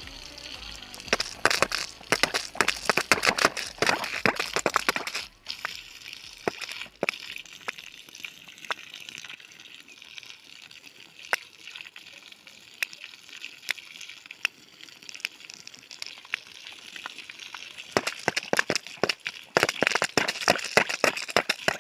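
Water being poured or sprayed onto garden plants and soil: a steady hiss of water full of crackling splashes. It grows heavier for a few seconds near the start and again near the end.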